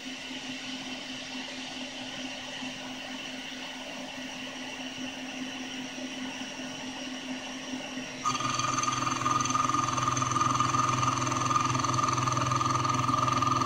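CNC-converted Grizzly G0678 milling machine running its chamfer program: a steady motor, belt and spindle hum that jumps abruptly to a louder, steady whine about eight seconds in.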